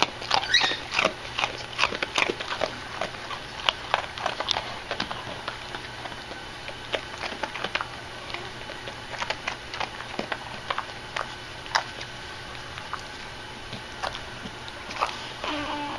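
A dog's mouth making a quick run of wet clicks and smacks close to the microphone, thick in the first few seconds and then sparser. A short pitched sound comes near the end.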